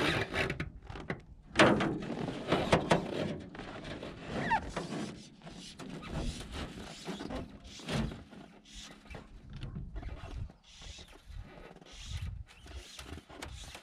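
A trout let go over the side of a jon boat, with a splash about a second and a half in, then a run of small clicks and knocks from the fly reel and tackle being handled in the boat.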